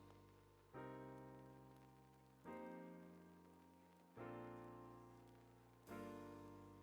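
Soft background piano music: a sustained chord struck about every second and a half to two seconds, four times, each fading slowly.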